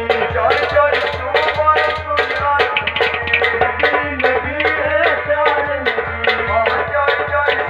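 Live folk music: a barrel hand drum struck in a quick, even beat of about four strokes a second, over sustained reed chords from a harmonium.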